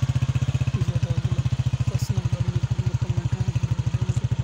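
An engine running steadily, with a fast, even pulse. From about a second in, a faint voice sounds over it.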